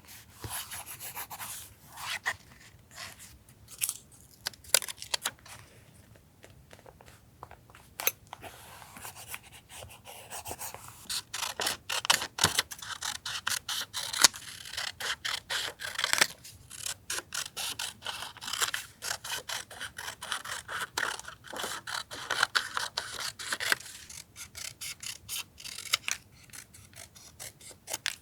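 Paper being handled for journal collage: scraping and rubbing of paper with runs of quick small clicks and snips, busiest in the middle stretch.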